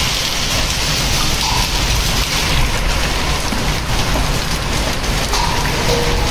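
Heavy rain mixed with hail pelting a concrete rooftop and its walls: a dense, steady hiss of countless small impacts.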